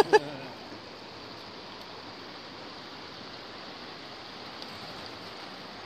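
Steady rush of creek water running over a shallow rapid.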